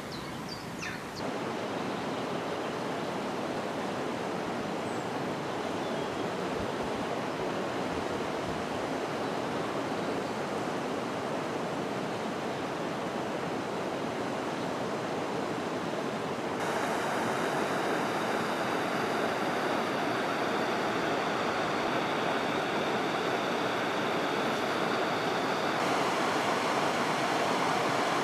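Steady rushing of river water spilling through a small weir, a little louder from about two-thirds of the way in.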